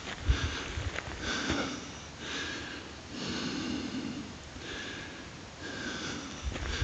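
Repeated heavy breaths, roughly one a second.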